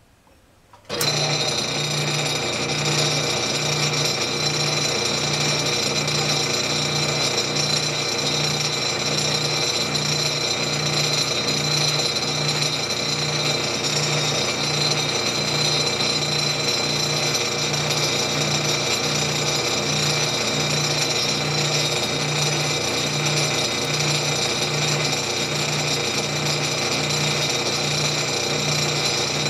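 South Bend Model A metal lathe switched on about a second in, then running steadily while it turns a steel nut: a steady high whine over a low hum that pulses about once a second.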